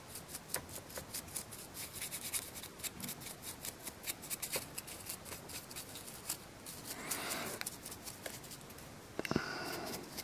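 Large stiff dry brush stippling silver paint onto a resin miniature: a faint, irregular run of dry ticks, several a second, with a couple of short scrubbing passes in the last few seconds.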